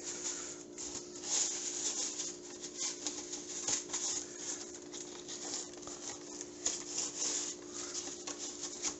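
Salmon fillets laid into a grill pan strewn with coarse kosher salt and pressed down by hand: irregular gritty scraping and crunching of salt crystals under the fish and fingers. A steady low hum runs underneath.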